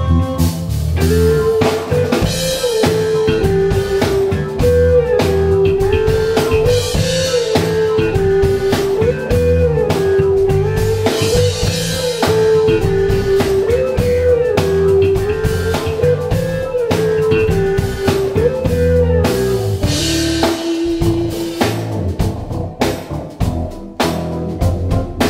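A four-piece instrumental band plays live: electric guitar, keyboards, bass guitar and drum kit. A melodic line repeats a short up-and-down figure about every two seconds over steady drums and cymbals, then settles on a lower held note near the end.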